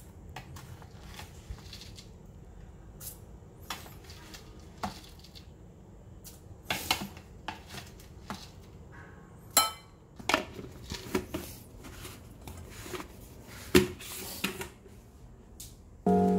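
Metal spoon scooping rolled oats from a glass bowl into a stainless steel saucepan: irregular clinks, scrapes and knocks of spoon on pan and bowl, with a few sharper clanks in the second half.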